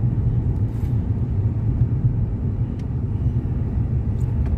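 Steady low rumble of a car driving along a snow-covered road: engine and tyre noise.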